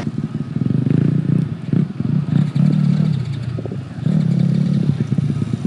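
Yamaha YZ250F motocross bikes' four-stroke single-cylinder engines running at idle, their pitch and loudness rising and falling unevenly as the throttles are blipped.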